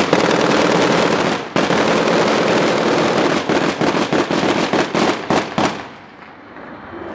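Barrel bomb exploding: a sudden, very loud blast followed by about six seconds of dense noise full of irregular sharp cracks, which falls away near the end.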